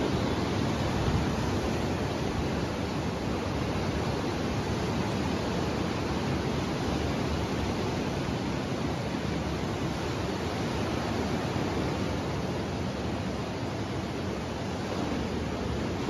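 Steady rushing noise of sea breeze and surf breaking on the beach below, with no single wave standing out.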